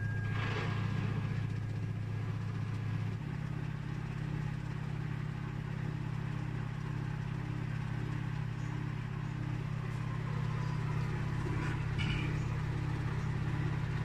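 Haier 7.5 kg front-load washing machine's direct-drive drum spinning, a steady low motor hum that steps up in pitch about three seconds in as the spin speed rises. This is the machine's normal spin noise, slightly heavy but low.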